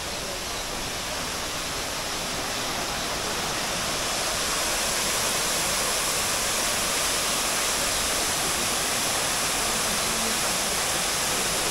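Steady rushing of water, growing a little louder about four seconds in.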